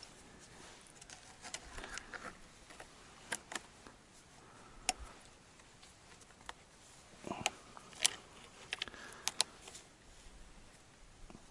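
Thin wire being wrapped around a log and twisted tight by hand, giving irregular small clicks and scrapes, a few sharper ones about halfway through and again later.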